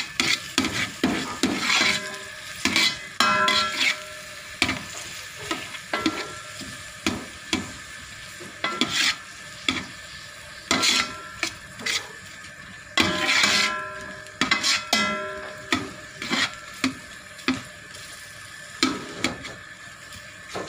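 A metal ladle scraping and clinking against the aluminium inner pot of a rice cooker as sliced shallots and garlic are stirred, with a light sizzle of them frying in oil. The scrapes come irregularly, a few each second.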